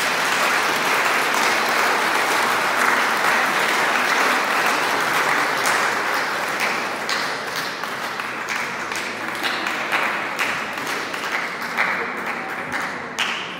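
A congregation applauding in a church: loud, steady applause that slowly thins out into more scattered claps over the last few seconds.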